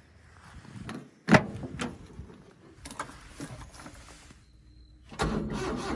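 Door of a Suzuki Carry kei truck opened with a sharp clunk about a second in, followed by softer knocks and handling noises in the cab. Near the end a louder, rough rumbling noise starts.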